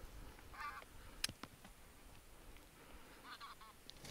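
Bean geese honking faintly: two short bursts of calls, one just after half a second in and another a little after three seconds.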